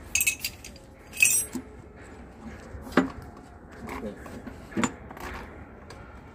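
Metal tools and engine parts clinking and knocking as a JCB 444 diesel engine is being dismantled: two jangling rattles in the first second and a half, then sharper single knocks about three and five seconds in.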